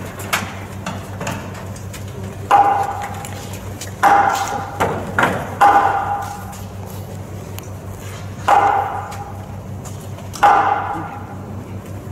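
Hammer blows on metal: five sharp strikes at uneven intervals, each ringing out with a clear metallic tone for about a second, with a few lighter knocks in between.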